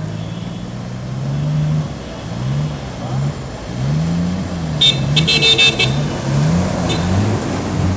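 A car drives through deep floodwater, its engine running under the rush and splash of water. A horn sounds a quick series of short toots about five seconds in, with one more brief toot a couple of seconds later.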